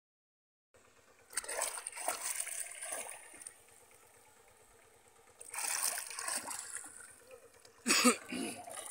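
Water splashing and sloshing as a hand gropes inside a bamboo polo fish trap pressed into shallow muddy water, in three bouts, the last one about eight seconds in the sharpest and loudest.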